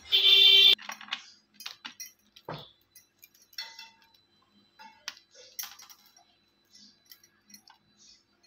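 A short, loud metallic ring right at the start, then faint scattered clicks and soft taps of fingers pulling apart sticky tamarind over a steel plate.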